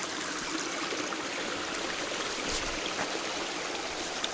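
Small trailside stream running with a steady rushing hiss of flowing water, a shallow runoff creek that is not quite dry.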